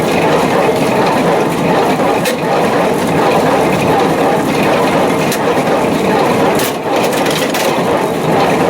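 John Deere 328 square baler running at operating speed, a steady loud mechanical clatter with a few sharp clicks and knocks scattered through.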